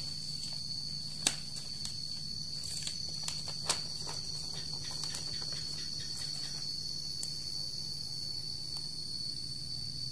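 A cricket trilling steadily at one high pitch over a faint low hum, with two sharp clicks about one and four seconds in.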